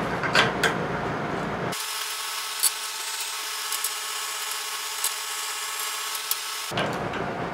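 Bolts on the CNC gantry's end plate being tightened by hand with a T-handle hex key: scraping and rubbing with a few sharp metallic clicks. The background changes abruptly twice, with a steady hum in the middle stretch.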